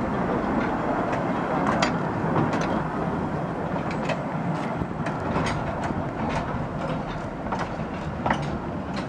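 A small 483 mm-gauge mine-railway train, a battery-electric locomotive with a coach, rolling slowly along the track: a steady rumble with irregular clicks and rattles from the wheels on the rail joints.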